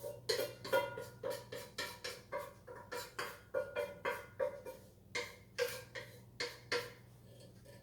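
A metal spoon knocking and scraping browned ground beef out of a skillet into a strainer: a quick run of sharp, ringing knocks, about four a second.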